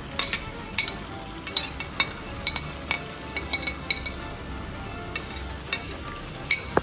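Bowl and wooden spatula clinking and scraping against a pan as boiled chana dal is tipped out of the bowl into tomato masala: a run of sharp, irregular clicks and clinks, about three a second.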